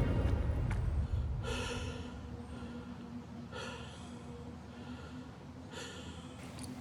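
A person breathing heavily: three sharp, hissing breaths about two seconds apart, over a faint steady hum.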